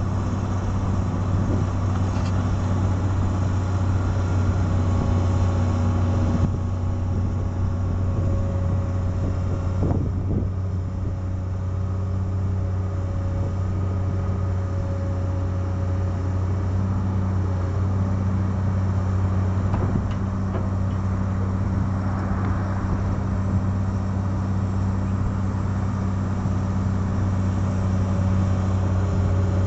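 Komatsu PC200LC-8 excavator's diesel engine running steadily under hydraulic load as the boom and arm are raised and lowered, with a couple of brief knocks from the working gear.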